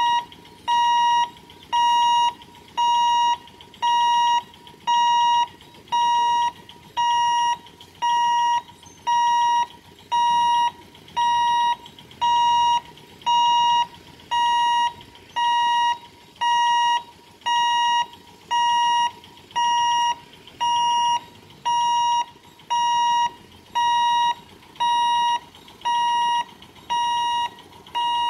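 Level-crossing warning alarm beeping steadily, a single electronic tone pulsing on and off at just over one beep a second, sounding while the barrier is down for an approaching train.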